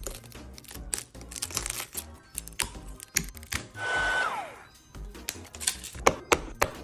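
Background music over a busy run of sharp clicks and crackles. About four seconds in comes a short whoosh with a tone that holds, then slides down.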